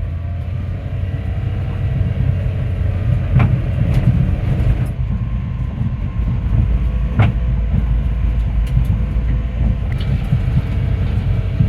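Kubota BX23S compact tractor's diesel engine running as it drives over rough ground, with rattling and a few sharp knocks, the loudest about four and seven seconds in.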